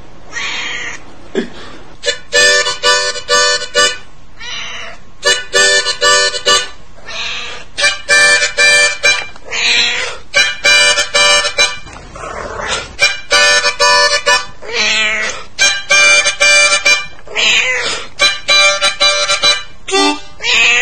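A harmonica plays short chord phrases, and a Siamese cat answers each with a drawn-out, wavering yowl, the two taking turns all through.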